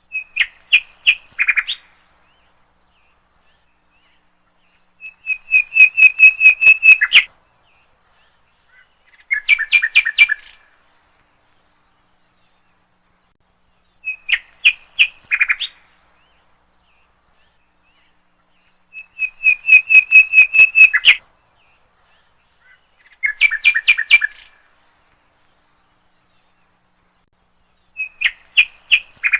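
Birds chirping and trilling in short bursts of rapid notes with pauses between them. The same three phrases come back in the same order about every fourteen seconds, as a looped recording would.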